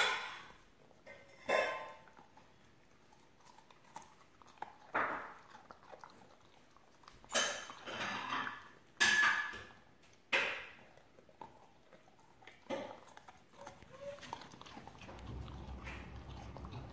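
English cream golden retriever puppy chewing a raw celery stick: irregular crisp crunches, several seconds apart at first and then in quicker clusters.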